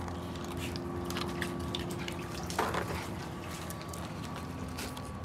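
Small water splashes and drips from a dog playing with its muzzle in a shallow tarp wading pool, with a louder burst of noise a little past halfway, over a faint steady hum.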